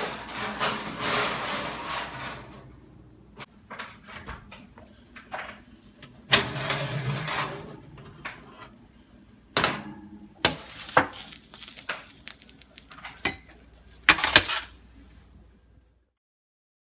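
Kitchen clatter: a series of knocks and clanks from pans, a tray and utensils being handled, with a couple of longer, noisier stretches near the start and about six seconds in. The sound cuts off abruptly about a second before the end.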